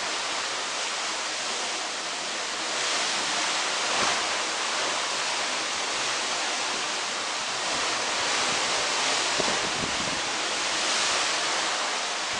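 Steady rush of sea water along a moving cruise ship's hull, mixed with wind across the microphone, swelling and easing slightly every few seconds.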